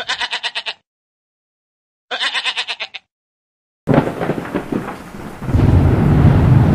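Two short bursts of a rapid stuttering sound effect with a gap between them, then near the middle a sudden thunder sound effect that builds into a heavy low rumble with a rain-like hiss.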